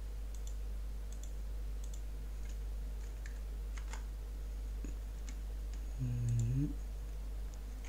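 Scattered light clicks of a computer mouse and keyboard over a steady low hum. About six seconds in, a person's voice gives a short hum.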